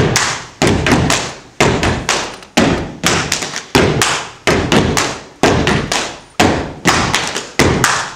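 Step dancers stomping their feet and clapping in a steady rhythm: loud sharp hits about once a second with quicker, lighter hits in between, each one echoing briefly.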